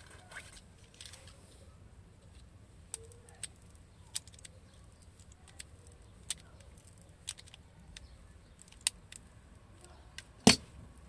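A small razor blade scoring the plastic jacket of a thin coaxial cable: a series of sharp, irregular clicks as the blade bites and cuts, with one much louder click near the end.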